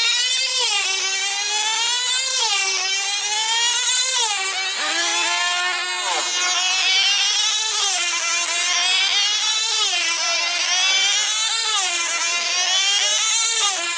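Several F2C team-race control-line model aircraft with small diesel engines running flat out as they circle, a high, overlapping buzz whose pitch rises and falls about once every two seconds as each model sweeps past.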